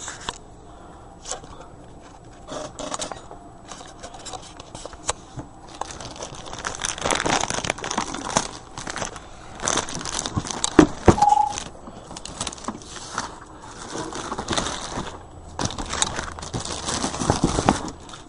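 Plastic wrap and box packaging being handled: irregular crinkling, crackling and tearing with scattered clicks, and a short high squeak about eleven seconds in.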